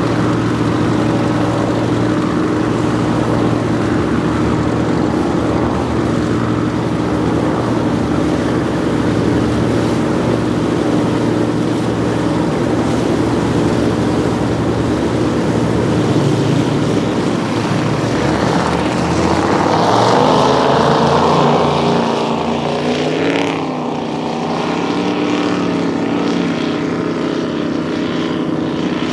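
High-performance powerboat engines running at speed, a steady deep drone. About twenty seconds in the sound swells and bends down in pitch as a boat passes, then settles a little quieter.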